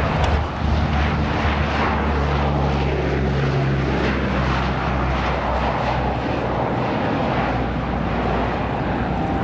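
Four Allison T56 turboprop engines of a JASDF C-130H Hercules running at high power as it climbs out low: a steady, loud propeller drone with a deep hum underneath.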